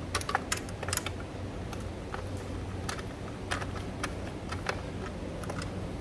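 Hand ratchet wrench clicking in short, irregular strokes as valve cover bolts are tightened by hand, over a low steady hum.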